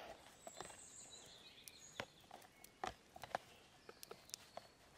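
Faint, scattered clicks and rustles of kitchen paper and a plastic tub as wet dandelion flowers are pressed dry.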